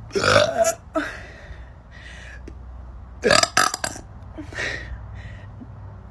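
A woman burping: two loud burps, one near the start and one about three seconds in, with a few softer, shorter sounds between them.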